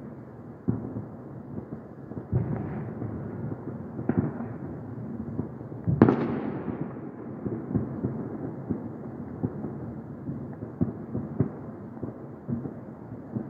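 Fireworks bursting: a string of sharp bangs that rumble away, the loudest about six seconds in, with smaller pops between.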